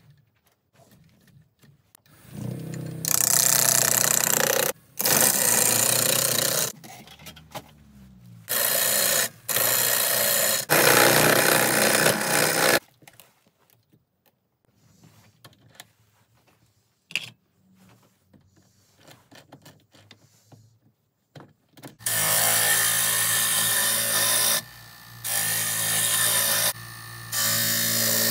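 Wood lathe running with a gouge cutting a spinning glued-up block of offcuts, a loud scraping hiss over a steady motor hum. The cutting comes in several stretches that start and stop abruptly, with a quiet pause in the middle holding only a few small knocks.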